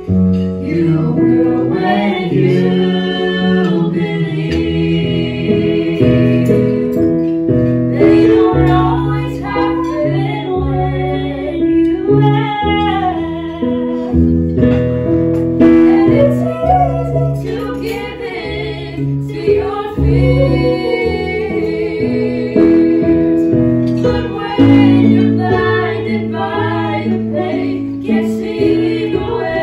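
Small mixed vocal group, three women and a man, singing into handheld microphones over instrumental accompaniment, with the women's voices out front.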